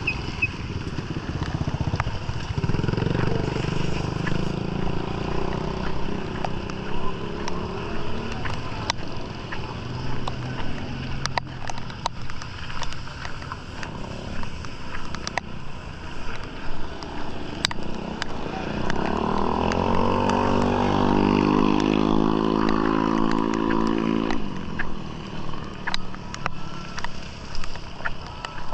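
Motorcycles passing on a street. One goes by about two to eight seconds in; a louder one comes by about nineteen seconds in, its engine pitch rising and then holding steady for a few seconds before it fades.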